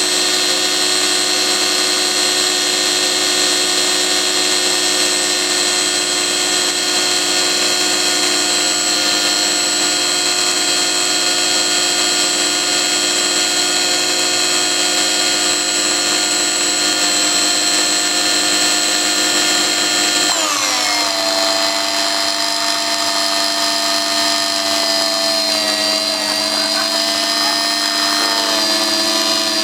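Electric motor from a pressure washer running flat out with bad bearings and its cooling fins removed, a loud steady whine made of many tones. About two-thirds of the way through, the pitch drops quickly and the motor carries on at a lower speed.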